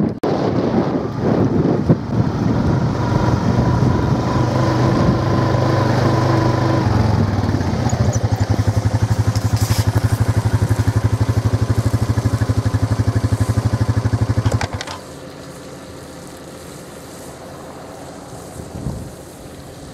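New Holland T7.190 tractor's six-cylinder diesel engine running under load close by as it tows an umbilical slurry dribble bar. About seven seconds in the engine sound turns to an even, rapid pulsing, and about fifteen seconds in it drops away abruptly, leaving a quieter steady rush.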